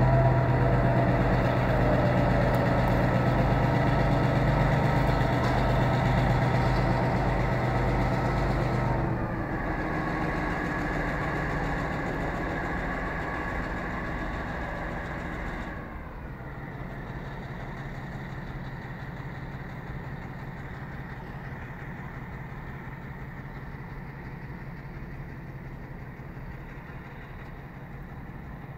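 EMD SW9 switcher's 567B 12-cylinder diesel engine running as the locomotive pulls away, a steady engine note with an even low beat. It steps down in loudness about nine seconds in and again near sixteen seconds, then grows fainter as the locomotive moves off.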